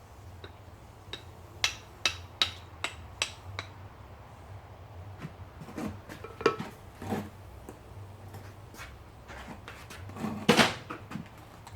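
Hammer blows on copper against an anvil: a run of about seven quick metallic strikes, then a few duller knocks and a louder strike near the end, over a low steady hum.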